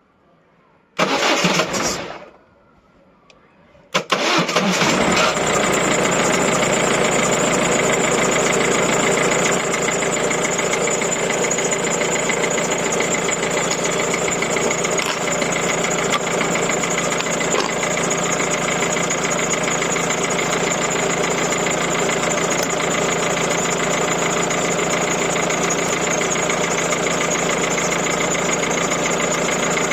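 1.6 HDi four-cylinder turbodiesel engine: a brief loud burst about a second in, then it starts suddenly about four seconds in and settles into a steady idle.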